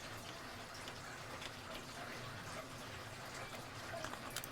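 Faint steady hiss of room noise, with a few faint small clicks near the end.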